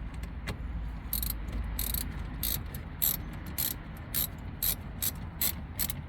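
Socket ratchet clicking in short bursts, about two a second, as a battery terminal nut is worked.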